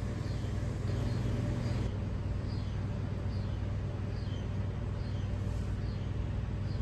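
A steady low hum, with faint short high chirps recurring about twice a second.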